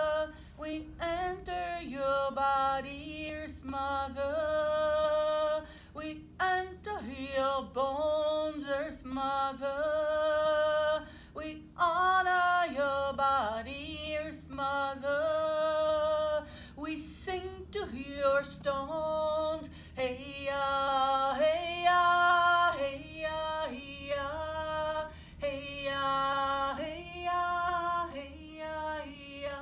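A woman singing unaccompanied, holding long notes in short phrases with brief breaks between them.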